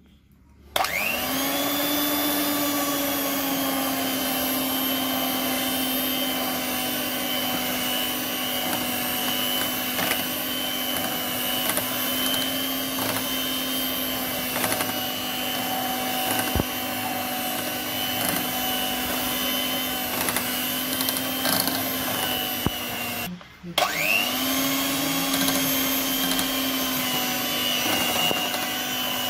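Electric hand mixer beating thick marshmallow mixture in a glass bowl. The motor starts about a second in, its whine rising as it comes up to speed and then holding steady. It stops briefly about three quarters of the way through and starts up again with the same rising whine.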